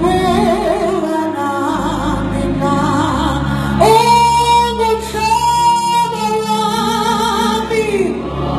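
Youth choir singing a Zulu gospel song; about four seconds in they hold long notes together for several seconds before moving on.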